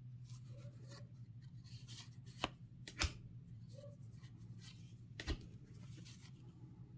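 Trading card deck and its packaging handled by hand: soft rustling and scraping, broken by three sharp clicks or taps, the loudest about three seconds in, over a steady low hum.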